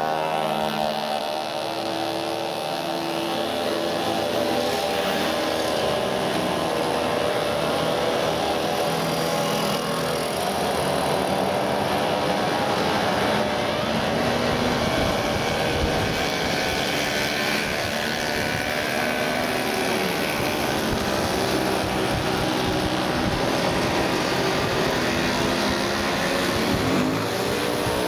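A steady stream of small 50 cc two-stroke mopeds riding past one after another, their many engines buzzing and overlapping continuously with shifting pitches as each passes.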